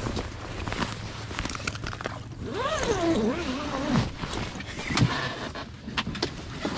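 Nylon fabric of a pop-up ice-fishing shelter rustling and being pulled open by hand, over a steady low hum. About two and a half seconds in comes a drawn-out cry that rises and then falls.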